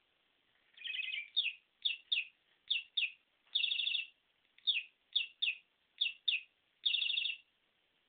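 Budgerigar chirping: about ten short, quick chirps, mostly in pairs, broken by three longer buzzy calls.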